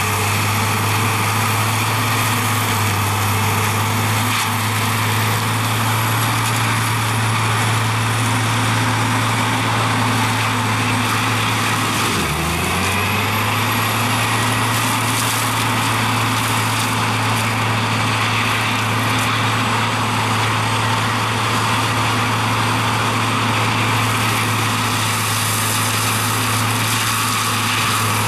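Variotrac 400 mulcher running flat out, its engine and cutting head making a constant drone with a rough grinding noise as it shreds pine brush. About twelve seconds in, the pitch drops sharply and climbs back within about a second.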